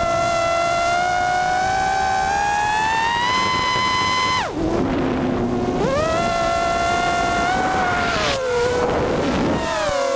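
Racing quadcopter's EMAX RS2205 2600kv brushless motors and 5-inch two-blade props whining in flight, the pitch following the throttle through a power loop. The whine climbs slowly, drops sharply about four and a half seconds in as the throttle is cut, and jumps back up a second later when it is punched again. Near the end the pitch dips once more under a short rush of noise, then climbs.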